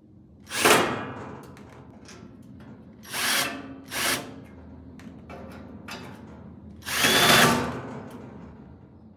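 Cordless drill with an extension bit driving screws into the box's panels. It runs in four short spurts: one about half a second in, two close together around three and four seconds, and a longer one near seven seconds.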